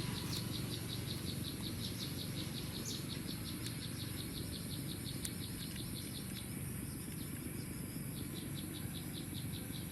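An insect chirping in an even, fast rhythm of about six high chirps a second, pausing briefly about seven seconds in, over a low steady hum.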